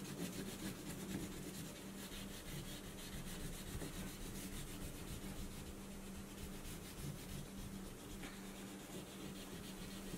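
Wax crayon rubbed back and forth on paper in quick, steady strokes, colouring in a green background; faint, over a low steady hum.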